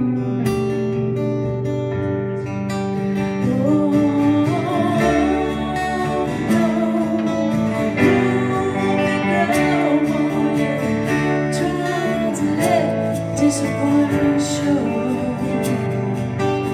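Live acoustic song: a steel-string acoustic guitar strummed steadily, with a wavering melody line over it.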